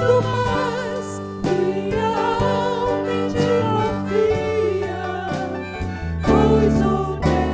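Christian worship song with a vocal melody over instrumental accompaniment, likely a recorded track.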